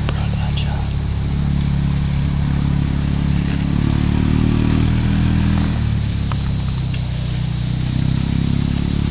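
An engine running steadily, with a low hum that swells slightly in the middle, over a constant high-pitched hiss.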